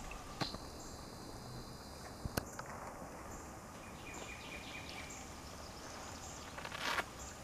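Outdoor ambience with a steady high insect buzz. There are a few sharp clicks and a short noisy burst near the end.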